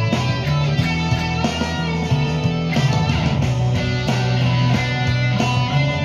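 Stratocaster-style electric guitar playing a boogie-rock part, over a steady beat with drums and a low bass line.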